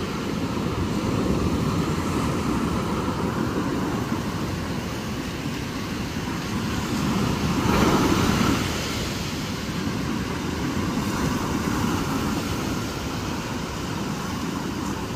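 Ocean surf breaking and washing up on a sandy beach: a steady rush, with one louder wave about eight seconds in.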